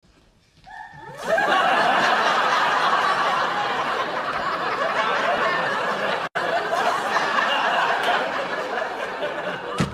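Sitcom studio audience laughing, a sustained wave of laughter that swells in about a second in, with a split-second dropout a little past halfway.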